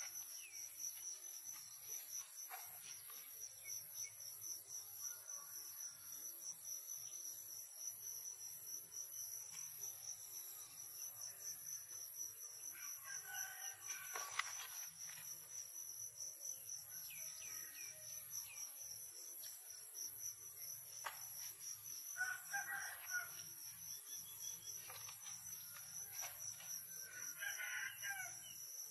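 Roosters crowing faintly a few times over a steady high-pitched drone of insects.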